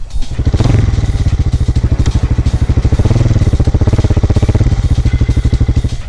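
Motorcycle engine running with a fast, even pulse; it starts suddenly at the beginning and breaks off near the end.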